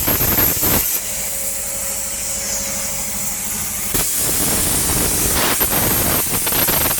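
CNC plasma cutter torch hissing steadily as it cuts a sheet-metal jali pattern. From about four seconds in, the hiss turns louder and rougher, with crackling.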